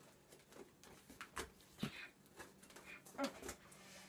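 Faint scrapes and taps of hands working on a cardboard shipping box, a few short clicks scattered through.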